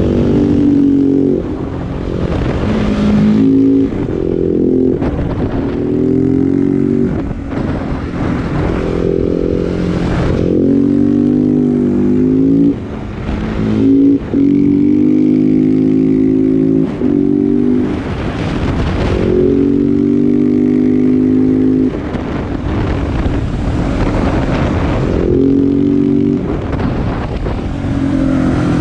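KTM 690 SMC R's single-cylinder engine breathing through a LeoVince exhaust while riding: revs climb and fall repeatedly, with brief dips every few seconds as the throttle is rolled off and gears are changed.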